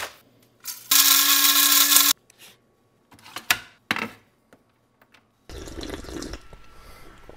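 A small electric kitchen motor whirs loudly with a steady pitch for about a second and cuts off abruptly, while coffee is being made. A few sharp clicks follow as a ceramic mug is set on the drip tray of a single-serve coffee brewer, then a steady low hiss near the end.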